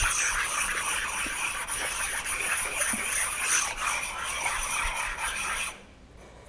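Brake pad from a 2004 Subaru WRX/STI being rubbed hard back and forth on a concrete floor: a steady, gritty scraping as the glazed friction surface and built-up brake dust are sanded off. The scraping stops near the end.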